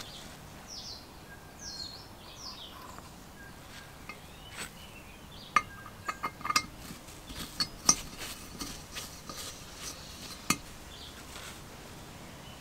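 Engine valve clicking and tapping against the aluminium cylinder block of a Briggs & Stratton small engine as it is slid into its valve guide and seat and lifted out again: a scatter of sharp metal clinks through the middle of the stretch, with faint chirps at the start.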